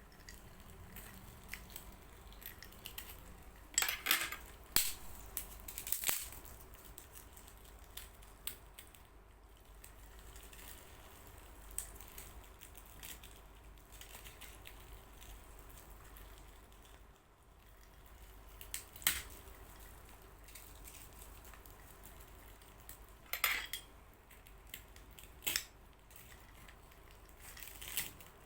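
Occasional sharp clinks and short crackles of utensils, glass, ice and kerupuk crackers being handled while the remedy drink is made, with quiet stretches between. A cluster comes about four to six seconds in, a single clink near the middle, and more near the end.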